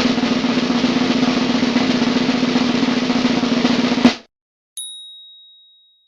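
Snare drum roll for about four seconds, ending on a single sharp hit; a moment later a single bright ding rings out and fades.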